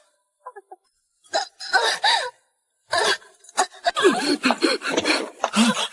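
A person gasping and crying out several times without words, in short breathy vocal sounds that come thicker toward the end.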